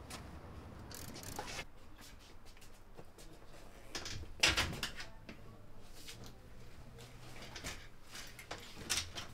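A bicycle being wheeled over a shop doorway and handled: scattered knocks and rattles of its metal frame, the loudest knock about four and a half seconds in.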